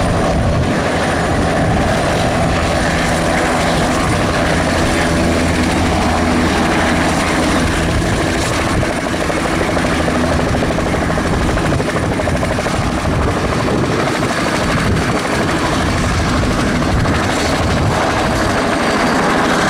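Bell 505 Jet Ranger X helicopter's turboshaft engine and two-blade main rotor running steadily and loudly as it hovers close to the ground.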